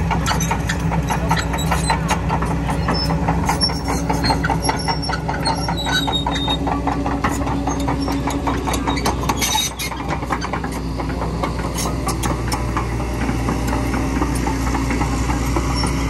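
Kobelco crawler excavator's diesel engine running steadily as the machine travels, with its steel tracks clanking in a quick run of clicks.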